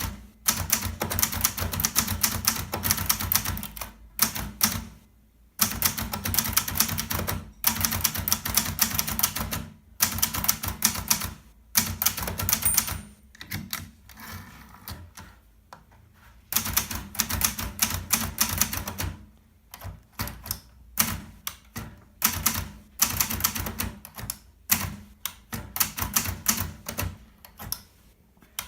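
Hermes Baby portable typewriter being typed on: runs of rapid key strikes lasting from one to a few seconds, with short pauses between them and a longer, quieter pause near the middle.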